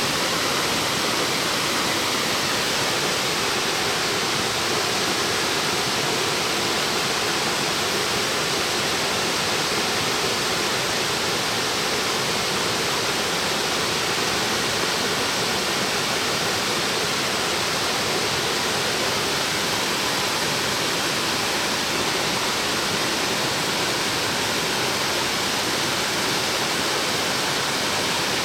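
A 40 m branching waterfall pouring down: a steady, unbroken rush of falling water.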